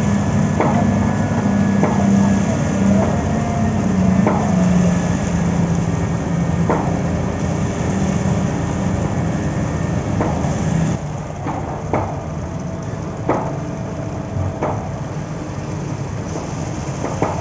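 Heavy construction machinery running steadily, with sharp knocks every second or two. About eleven seconds in, the engine note drops lower and quieter while the knocks go on.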